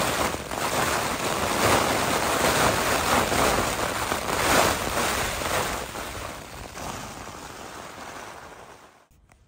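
Strong wind and heavy rain battering a Hilleberg Soulo tent, heard from inside as a loud rushing noise that swells in gusts, then fades away over the last few seconds.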